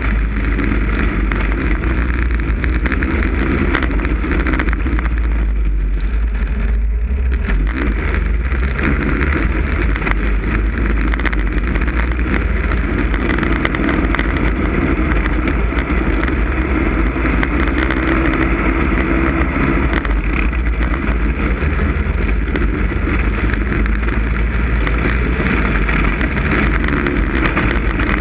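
Snowmobile engine running steadily at speed, with heavy wind rumble on the microphone. The engine sound eases off briefly about six seconds in, then comes back.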